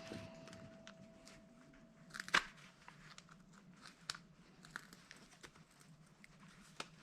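Faint handling noises of a small part being worked by hand: scattered light clicks and scratchy crackles, with a sharper click about two and a half seconds in. A thin faint ringing tone dies away around the same moment.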